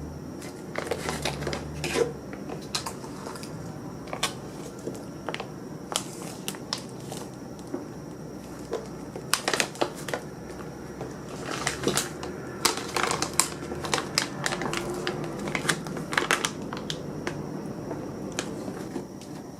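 Irregular clicks, taps and knocks of small objects being handled, some in quick clusters, with a little crinkling, over a faint steady high tone.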